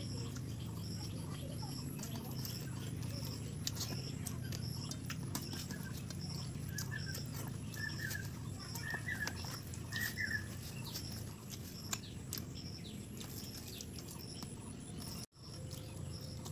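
Chewing and mouth clicks of someone eating rice and roasted rat by hand, over a steady low background hum. A bird gives four short chirps about a second apart midway, and a high pip repeats about twice a second throughout.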